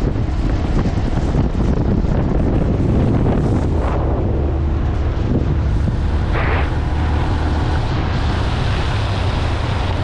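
Wind rushing over the microphone of a camera on a moving motorcycle, with the bike's engine running underneath as a steady low hum.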